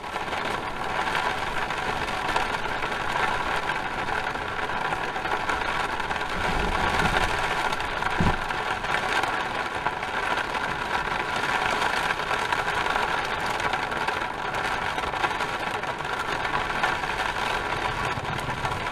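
Thunderstorm rain and wind beating on an RV, heard from inside: a steady rushing noise with no let-up.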